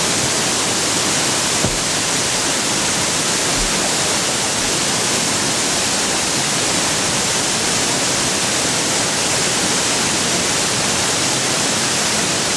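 Waterfall pouring: a loud, steady rush of falling water, with one brief click a little under two seconds in.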